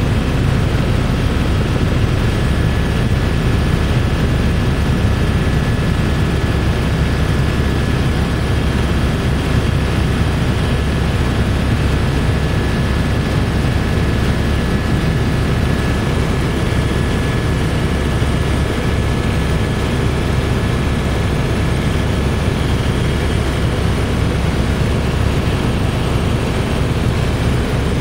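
Eurocopter AS350B3 Ecureuil single-turboshaft helicopter in cruise flight, heard from inside the cabin: a steady, loud low drone of rotor and engine with a faint high whine held at one pitch.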